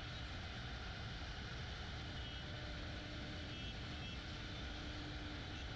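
CNC router running steadily: a continuous low rumble and hiss, with a faint steady whine that drops out for a while partway through.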